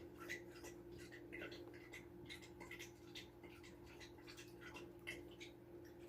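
Faint squeaks and small scattered clicks from 12-day-old American bulldog puppies, over a steady low hum.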